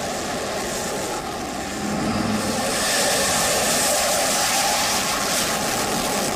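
Fighter jet engine noise: a steady rushing roar that grows louder about two seconds in, as in a jet passing in flight.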